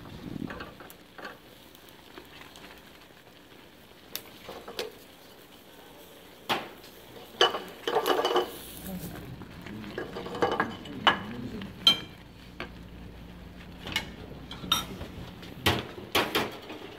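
Wooden spatula stirring a cream sauce in a stainless steel saucepan, scraping the pan with scattered knocks and clicks against its sides.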